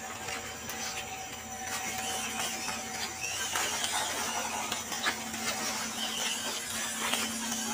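WPL D12 RC pickup truck's small electric motor and gearbox running with a steady whir as it drives, while dry leaves crackle under its tyres.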